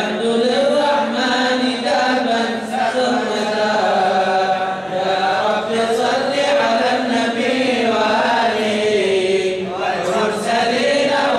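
Male voices chanting devotional mawlid verses in Arabic, in long, drawn-out melodic phrases that rise and fall.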